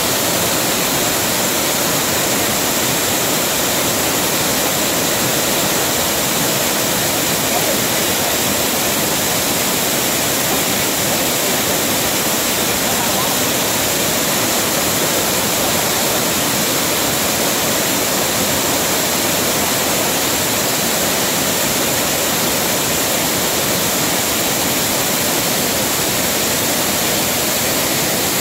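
Broad waterfall cascading over many tiers of rock, a steady, unbroken rush of falling water.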